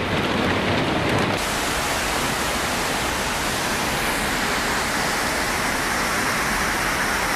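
Steady rushing of heavy water, like floodwater pouring through. About a second and a half in, the sound cuts abruptly from a heavier, lower rumble to an even, brighter rush.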